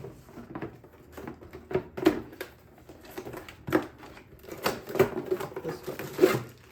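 Parts and packaging being handled and unpacked from a kit box: irregular clicks, taps and rustling, with a few sharper knocks.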